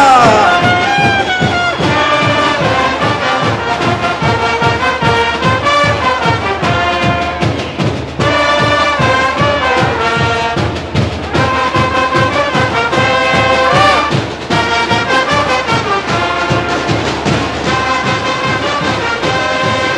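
Carnival brass band playing: trumpets and trombones carry a tune in held and moving notes over a steady drum beat.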